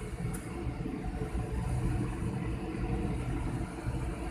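Steady rushing roar of the Dhuandhar waterfall on the Narmada, heavy in the low rumble.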